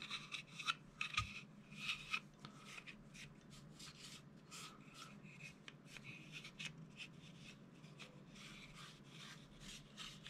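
Cotton cleaning patch rubbing and scraping over a Springfield XD(m) pistol's polymer frame, wiping residue off it and out of the magwell. Faint, irregular scrubbing strokes, busiest in the first couple of seconds.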